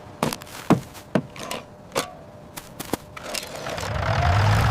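A series of sharp clicks and knocks, then about three and a half seconds in a miniature tractor's motor starts and runs with a steady hum, growing louder.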